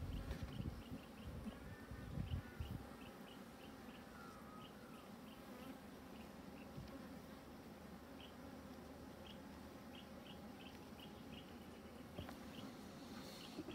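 Honey bees buzzing around an open hive while frames are moved, a soft steady hum that the beekeeper judges not cranky. A low rumble runs through the first few seconds, and short high chirps repeat at about two or three a second.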